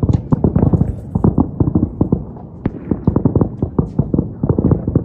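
Fireworks going off in a rapid, uneven string of bangs and pops, several a second.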